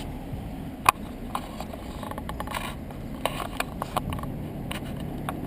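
Range Rover P38's 4.6-litre V8 engine idling with a low, steady rumble, with scattered sharp clicks and knocks, the loudest about a second in.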